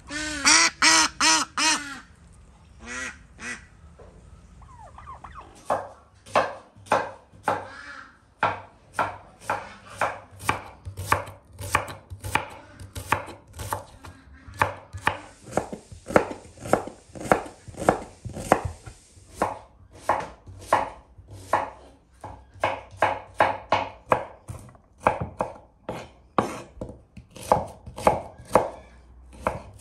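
Domestic ducks quacking in a quick loud run of about six calls, with a couple more a moment later. Then a kitchen knife chops red onion on a wooden cutting board in steady strokes, about two a second.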